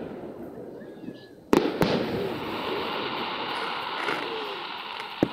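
Aerial fireworks shells bursting: two sharp bangs in quick succession about a second and a half in, then a lingering hiss, and another sharp bang near the end.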